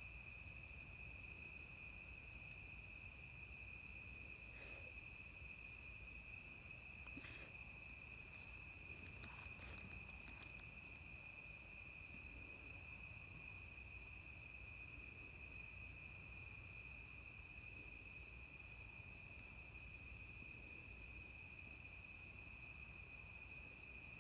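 Dusk chorus of insects such as crickets: several steady high-pitched trills at different pitches layered together, one finely pulsing, with a low background rumble. A few faint brief sounds come between about five and ten seconds in.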